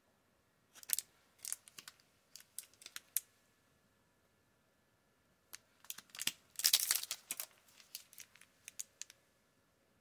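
A foil trading-card booster pack wrapper crinkling in the hands in two spells of sharp crackles, with a dense stretch of tearing about six and a half seconds in as the pack is opened.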